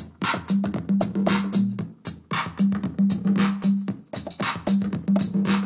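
Electronic beat: a DJ track playing in Traktor Pro with a Native Instruments Maschine drum-machine pattern running in sync over it, a steady pulse of drum hits, hi-hats and a repeating bass note.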